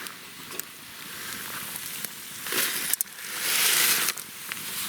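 Dry pasta-and-sauce mix being poured from its packet into a pot of boiling water, with a few clicks and a louder hiss for about half a second near the end.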